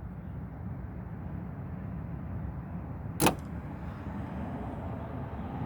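Steady low rumble with a single sharp click about three seconds in, likely from hand work on the car's hoses and clamps.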